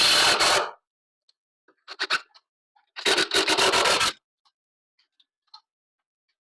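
Three bursts of rubbing and scraping, the last and longest lasting about a second, with a few faint ticks between them.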